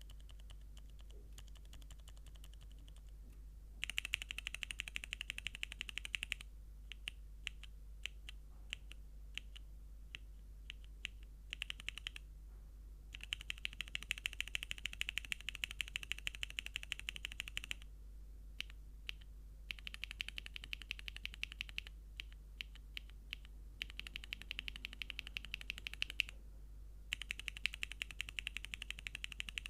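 Typing on a mechanical keyboard with frankenswitches (Cherry MX Northern Light housings with MX2A Orange stems, lubed, with 50g springs and films), under PBT keycaps on a carbon fiber plate. Fast runs of keystrokes, the first starting about four seconds in, alternate with slower, separate key presses.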